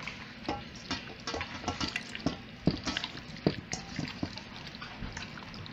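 Bare hands squishing and rubbing a wet seasoning paste into raw chicken pieces in a metal bowl: irregular wet squelches with an occasional sharper click.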